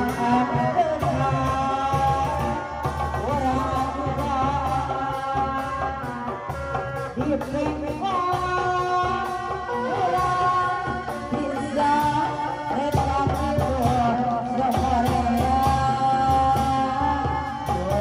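Sundanese folk music: a wavering sung melody over drums.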